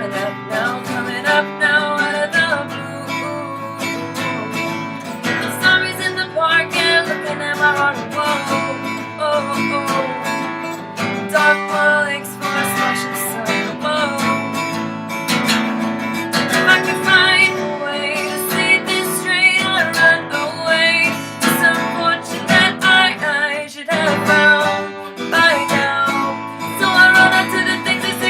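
Acoustic guitar strummed in steady chords, with a voice singing over it.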